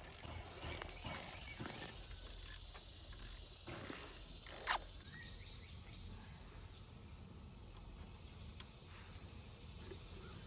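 Ratchet wrench with a 10 mm socket clicking through a run of short strokes, about one and a half a second, as it backs out a tight screw on an outboard's lower unit. It stops about five seconds in, with a brief falling squeak.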